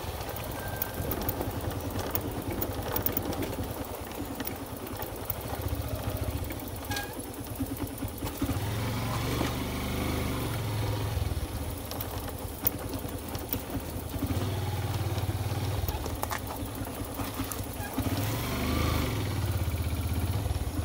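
Motorcycle engine running over a rough gravel track, recorded by a phone on a helmet mount: a low rumble that swells and eases several times, with a few sharp knocks.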